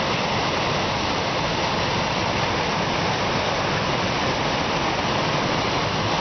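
Kivach waterfall on the Suna River: water pouring over the falls in a steady, even rush.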